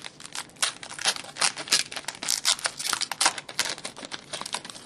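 Foil wrapper of a Panini Luxury Suite hockey card pack crinkling and tearing as it is pulled open by hand: a dense, irregular run of sharp crackles.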